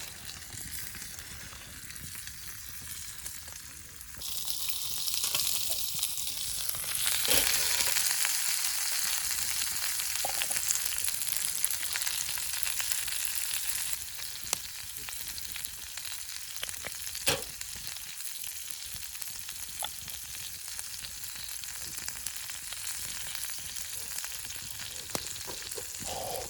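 Food sizzling as it fries in a hot pan. The sizzle gets suddenly louder about four seconds in, eases back after about ten seconds, and is broken by a few sharp clicks.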